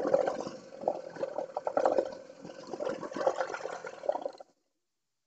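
Water splashing and running in an irregular rush, stopping abruptly about four and a half seconds in.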